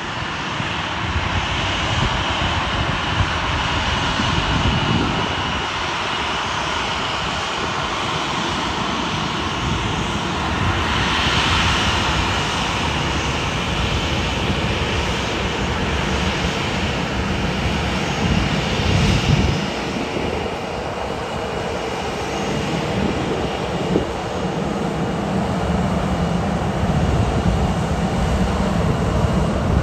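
Boeing 737-800's CFM56 turbofan engines running at low thrust as the airliner rolls slowly past: a steady jet rumble with a high, even engine whine.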